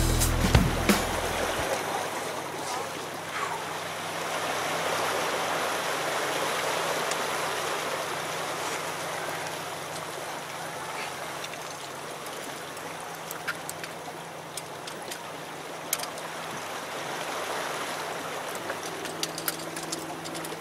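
Steady rushing of water washing against jetty rocks, with a few light clicks. Music fades out in the first two seconds, and a low hum comes in near the end.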